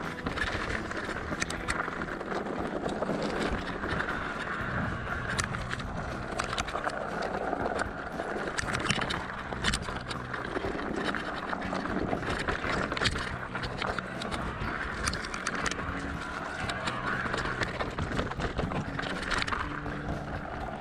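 Electric mountain bike ridden over rough, rocky trail: a steady rush of tyre and wind noise with many sharp knocks and rattles from the bike over stones.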